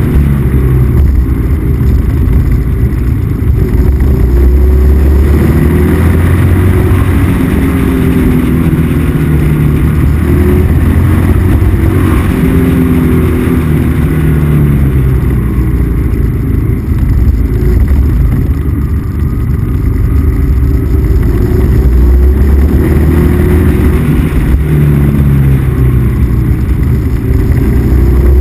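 Motorcycle engine running hard, its pitch rising and falling over and over with throttle and gear changes, over a heavy low rumble of wind on the onboard microphone.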